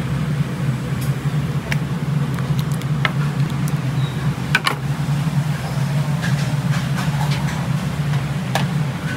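Steady low mechanical hum, with scattered light clinks and knocks over it.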